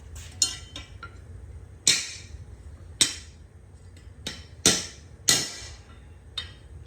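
Hammer striking a steel lawn mower blade: about seven sharp, unevenly spaced metal clanks, each with a short ring. The blade is being straightened after being bent.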